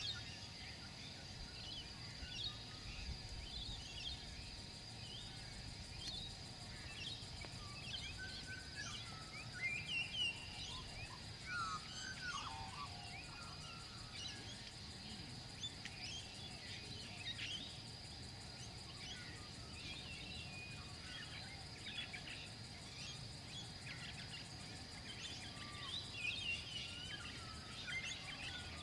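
Outdoor bush ambience: many birds chirping and calling, busiest about ten to thirteen seconds in and again near the end, including a call that slides downward in pitch. Under them runs a steady high-pitched insect drone and a low rumble.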